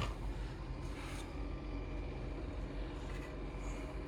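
Steady low hum of a propane gas heater running, its 12-volt system back on after blown fuses were replaced.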